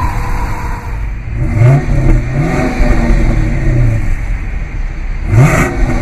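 A 5.7-litre HEMI V8 in a 2015 Dodge Charger R/T idling, then revved in three quick blips: about one and a half seconds in, about two and a half seconds in, and near the end. Each time the pitch rises sharply and then settles back to idle.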